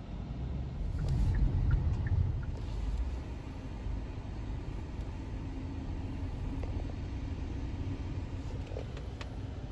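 Low, steady rumble of a car, swelling for a second or two about a second in, then settling. A few faint clicks sit over it.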